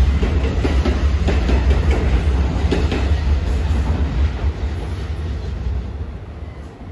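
NJ Transit Multilevel double-deck coaches passing close by, their wheels clattering over rail joints over a heavy low rumble. The sound fades away as the rear cab car goes past near the end.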